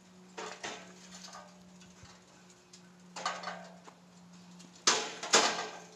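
Steel hay ring sections clanking against each other as they are fitted together: a few sharp metallic clanks that ring on, the two loudest about five seconds in.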